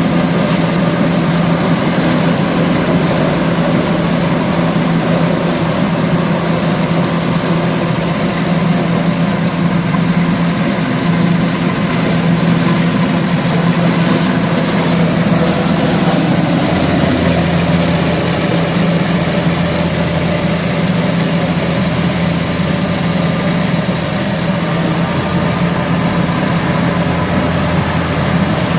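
An engine running steadily at constant speed, with a deeper low hum joining about seventeen seconds in.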